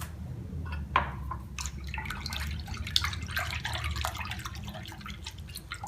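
Half a glass of olive oil poured into a bowl of warm milk and egg, trickling and splashing in a run of small irregular drips, over a low steady hum.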